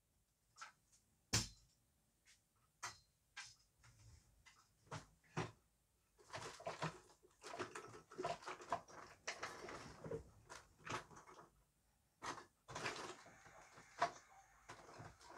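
Faint scattered knocks, clicks and rustles from someone handling a folding metal bed frame and its mattress, with one sharper knock about a second and a half in.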